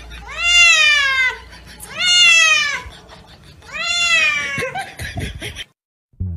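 A wet cat yowling while being bathed at a sink: three loud, drawn-out meows, each rising then falling in pitch, the distress calls of a cat that dislikes the water.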